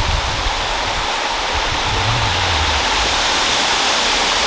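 Waterfall: a loud, steady rush of falling water, with low rumbles at the start and about two seconds in.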